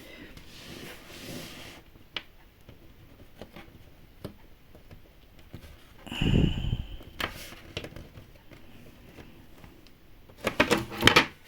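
Small plastic miniature kit pieces being handled and fitted: scattered light clicks, a dull thump about six seconds in, and a quick run of sharp clicks near the end.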